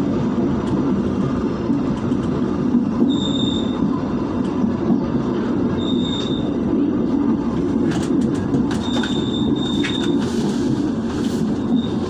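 Passenger train carriage running along the track, a steady low rumble, with short high-pitched squeals several times and scattered sharp clicks in the second half.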